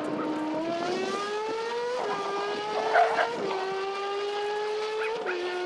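Racing car engine sound effect, running hard through gear changes. Its pitch climbs over the first two seconds, then drops in steps at each shift, about two, three and a half, and five seconds in.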